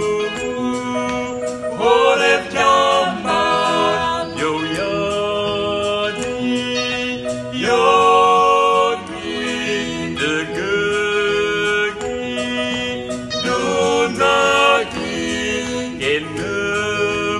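A small mixed group of men and women singing a gospel song over instrumental backing.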